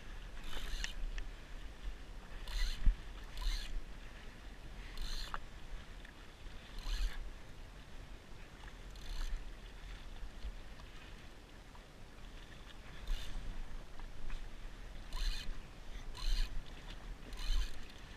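Small waves slapping against the hull of a drifting jetski in short irregular splashes every one to two seconds, over a low rumble of wind on the microphone.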